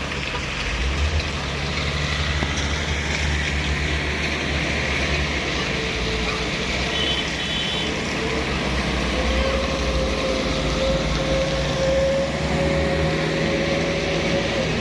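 Heavy truck's diesel engine running steadily with a low rumble, joined by a steady whine a little past halfway. A few short high beeps sound about halfway through.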